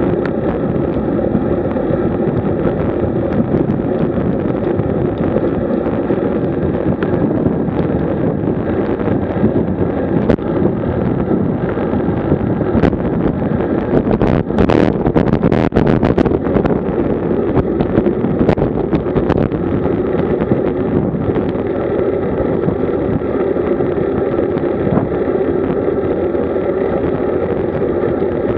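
Steady wind rushing over the microphone of a road bike at about 40 km/h, mixed with tyre noise on rough asphalt. A run of knocks and rattles comes about halfway through.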